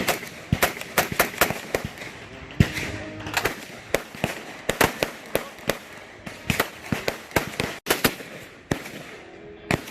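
Gunshots: a run of sharp reports of differing loudness, irregularly spaced at about two to three a second.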